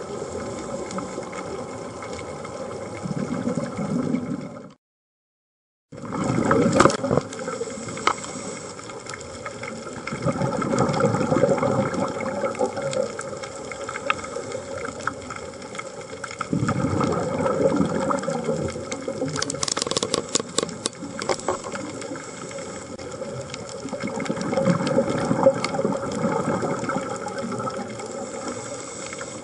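Underwater sound of a scuba diver's exhaled regulator bubbles, coming in louder surges every six or seven seconds over a steady hiss. The sound drops out to silence for about a second near the five-second mark, and a quick run of clicks comes around twenty seconds in.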